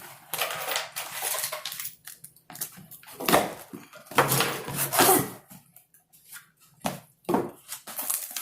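Rustling of gift packaging being handled and opened by hand, in several noisy bursts, with a few sharp clicks near the end.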